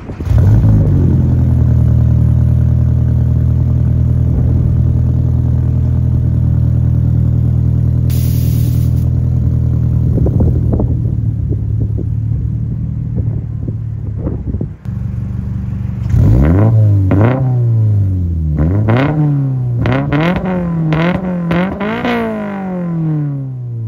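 2022 Toyota GR86's 2.4-litre flat-four engine heard through an aftermarket catback exhaust, idling steadily. About two-thirds of the way in it is blipped five or six times in quick succession, the pitch rising and falling with each rev and dropping back to idle near the end.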